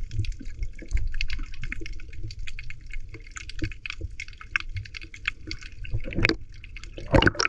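Water splashing and trickling, with many small irregular drips and spatters, and two louder splashes about six and seven seconds in.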